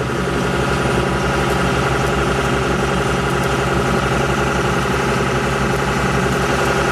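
Shrimp boat's engine running steadily, a constant drone with an even low pulse under it.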